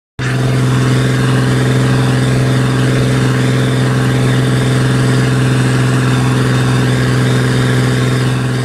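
Tractor's diesel engine running at a steady speed while driving, a steady low hum that holds one pitch throughout.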